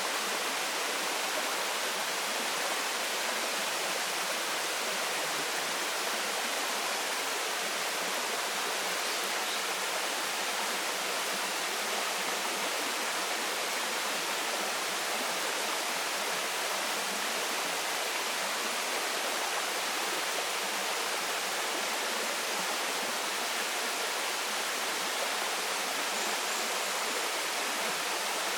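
Waterfall pouring steadily into a stream: an even, unbroken rush of falling water.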